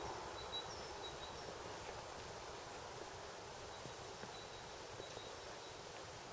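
Faint, steady outdoor background hiss with a few thin, high bird chirps, several in the first second and a half and a few more around four to five seconds in.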